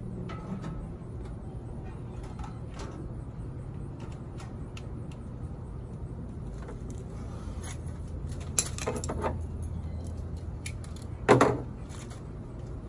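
Scattered light clicks and taps of parts being handled on a stainless steel Weber Genesis II LX gas grill's front control panel during assembly, with a short run of clatter about two-thirds through and one louder knock near the end, over a steady low hum.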